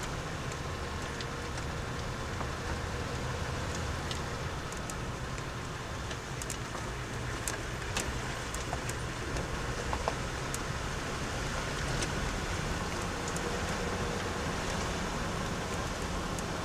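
Car driving along a road: steady engine and tyre noise, with a few faint clicks and rattles scattered through it.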